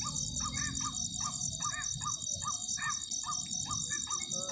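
Distant white-breasted waterhen (ruak-ruak) calls, a quick string of arched notes repeated about three times a second without pause. These are the lure calls bird trappers use to draw waterhens into a snare. Night insects trill steadily over them.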